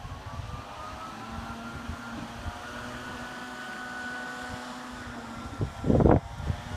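A motor running with a steady hum whose pitch rises slightly and then holds. A brief louder burst of noise comes near the end.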